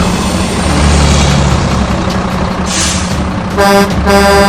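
Truck engine running with a steady rumble, then two short horn honks about three and a half seconds in.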